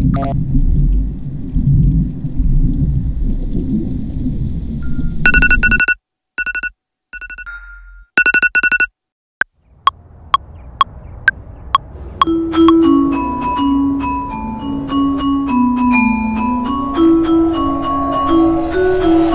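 Low underwater rumble, then a few seconds of stuttering electronic beeps cut by sudden silences, then background music starting: evenly spaced ticks, then a synth melody of short notes over a bass line.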